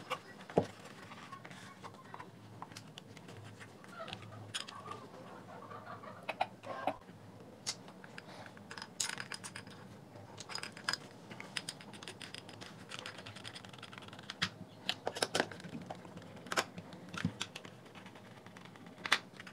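Irregular light clicks, taps and scrapes of a JBL Flip speaker's plastic housing parts being handled and fitted back together, a few of them louder, with a screwdriver tip on the plastic end cap near the end.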